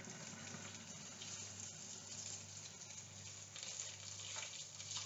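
Just-boiled water poured from a kettle in a steady, faint stream into a saucepan.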